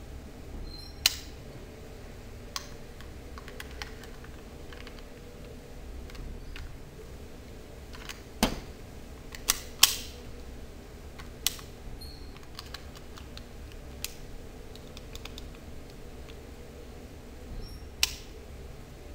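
Airsoft Luger P08 replica being handled, giving several sharp clicks and clacks at irregular intervals over a low steady background hum.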